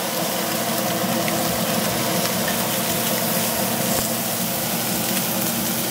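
Bacon-wrapped plantain sizzling in a hot cast-iron skillet, a steady frying hiss over a constant low hum.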